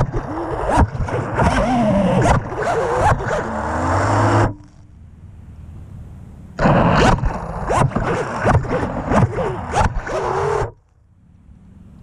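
Electric motors of a downed FPV racing quadcopter spinning up in two bursts of about four seconds each, pitch rising and falling, with the propellers thrashing against tall grass as the quad tries to free itself. Each burst cuts off suddenly, and the quad stays stuck upside down.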